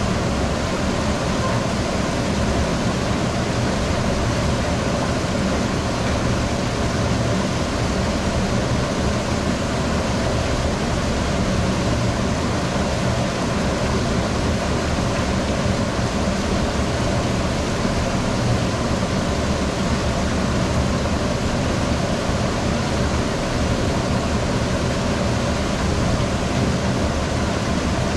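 Laboratory water flume running: a steady rush of flowing water with a low steady hum underneath.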